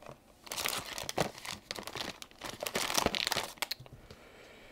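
Hands rummaging through a container of stored items: a run of rustling with a few sharp clicks, dying down near the end.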